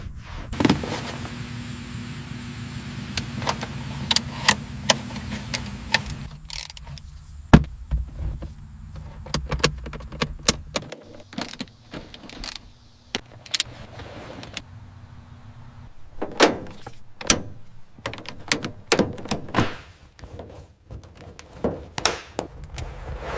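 A string of sharp clicks and knocks, like parts being handled and set down, over a steady low hum that stops abruptly about halfway through.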